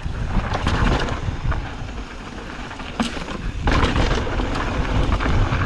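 Mountain bike descending a dirt trail: wind buffeting the camera microphone over the crunch of the tyres and the rattle of the bike. Sharp knocks break through it, one standing out about three seconds in, and the noise grows louder again from about four seconds in.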